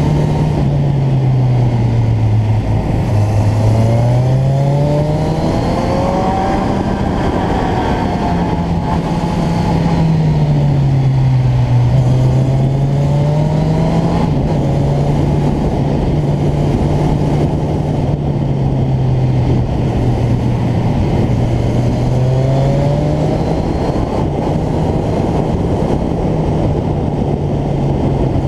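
Motorcycle engine heard from on board, its pitch rising and falling again and again as the throttle is opened and closed through a run of bends, over a steady rush of wind and road noise.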